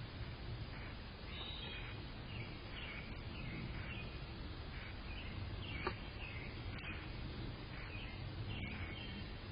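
Small birds chirping repeatedly in short calls over a steady low background rumble, with a single sharp click about six seconds in.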